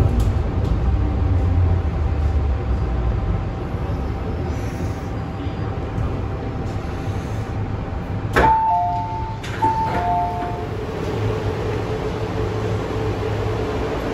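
MTR M-train electric multiple unit slowing into a station: steady running rumble, with the traction motors' whine falling in pitch at the start. About eight seconds in there is a sharp click, then a two-note electronic chime that plays twice.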